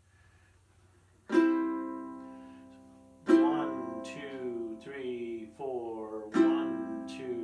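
Ukulele strummed in single downward strokes, three chords about two to three seconds apart, each left to ring and fade: the most basic beginner strum, one down-strum per beat. A man's voice is faintly heard between the second and third strums.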